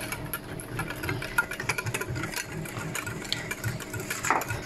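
Electric hand mixer running with its beaters whirring and ticking against a glass bowl as they beat a creamy ice-cream mixture; it stops at the very end.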